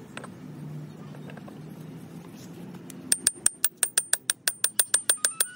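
A hand hammer tapping a steel output flange down onto the splined output shaft of a truck gearbox. Quick, even metallic strikes with a bright ring, about six a second, start about three seconds in after a faint low hum.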